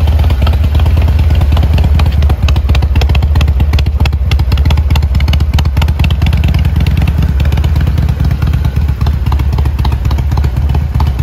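Harley-Davidson XL1200C Sportster's air-cooled V-twin running steadily at idle through an aftermarket muffler, with a loud, even low exhaust rumble.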